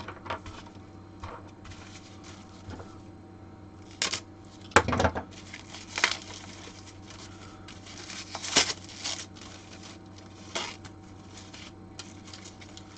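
Small soldering-station parts being handled and unpacked from plastic packaging: scattered rustles, clicks and knocks, the loudest about five seconds in, over a steady low hum.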